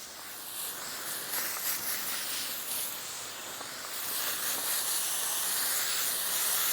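Water spraying from a hose onto a freshly sawn black walnut slab to wash sand off it, a steady hiss that gets louder about four seconds in.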